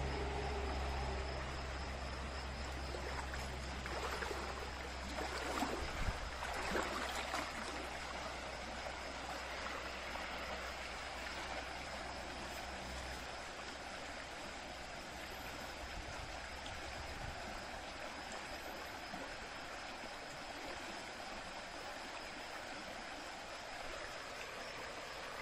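Shallow stream running over stones: a steady rushing of water. A few soft knocks come a few seconds in, and a low hum fades out about halfway.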